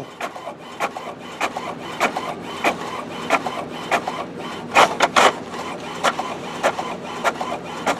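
HP OfficeJet Pro 6978 inkjet printer making copies: a steady run of short mechanical clicks, about three a second, with two louder strokes about five seconds in.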